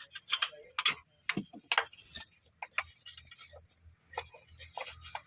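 Wrench clicking as bolts on a car's front shock absorber mount are tightened: sharp, irregular metallic clicks a few times a second, fainter after about two seconds.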